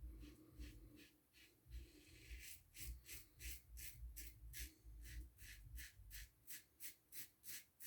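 Faint, quick scraping strokes of a Gillette Ball-End Tech double-edge safety razor cutting lathered stubble, about three to four strokes a second, settling into a steady rhythm about two seconds in.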